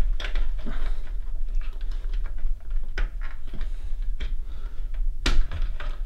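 Irregular light clicks and scrapes of a plastic power-cable connector being pushed through a narrow gap in a steel computer case, with one sharper knock about five seconds in, over a low steady hum.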